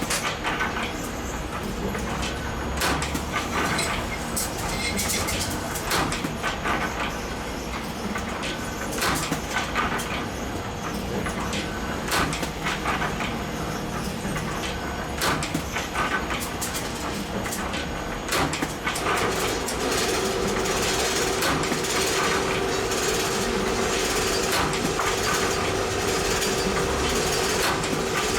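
Workshop machinery at spring-making work: irregular metallic clicks and knocks, then about two-thirds of the way in a motor-driven machine starts and runs with a steady hum.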